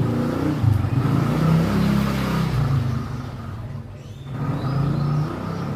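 A motor vehicle engine running close by, its pitch rising and falling, fading briefly about four seconds in before picking up again.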